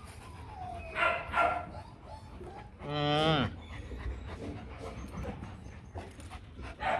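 Rottweilers vocalizing: two short barks about a second in, then one long drawn-out call near the three-second mark that drops in pitch at its end.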